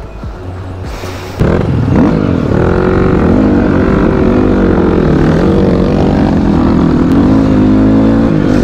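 Dirt bike engine being ridden, its pitch rising and falling with the throttle. It jumps suddenly louder about a second and a half in.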